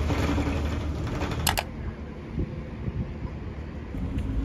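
Bus engine rumble and cabin noise, with a single sharp clack about a second and a half in. The noise then drops to a quieter stretch with faint ticking, and a low rumble comes back near the end.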